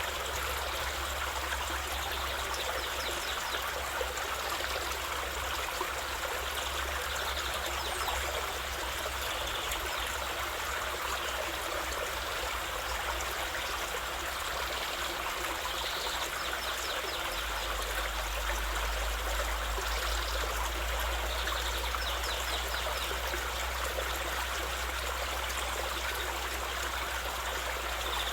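Steady running water of a stream, an even rushing sound with no change in level.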